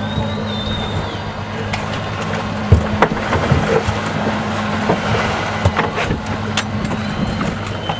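Boat engine idling with a steady low hum, under wind and water noise, with a sharp knock about three seconds in.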